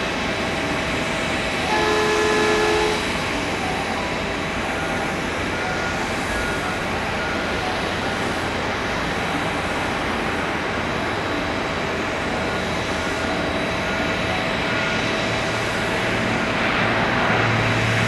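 McDonnell Douglas MD-90's IAE V2500 turbofans running at idle during pushback: a steady jet whine over a broad rush of noise. A horn-like tone sounds once for about a second, near the start, and a low rumble builds near the end.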